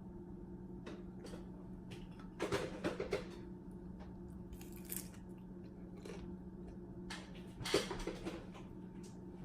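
Eating pan-fried pork pot stickers: two short bouts of biting and chewing mouth sounds, about two and a half seconds in and again near eight seconds, over a steady low hum.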